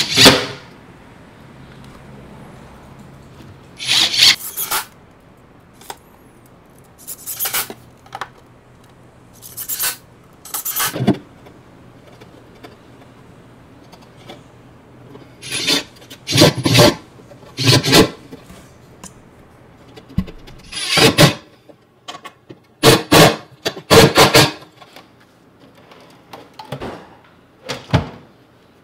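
Cordless drill running in a series of short bursts with pauses between, drilling and driving screws into a wooden drawer front to mount a drawer pull.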